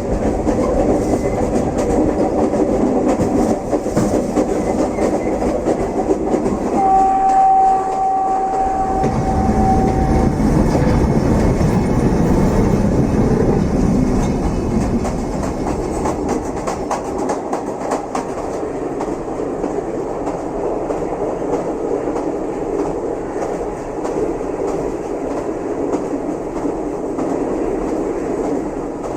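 Train running on rails, a continuous rumble. About seven seconds in, a single steady high tone sounds for about three seconds. The rumble eases slightly in the second half.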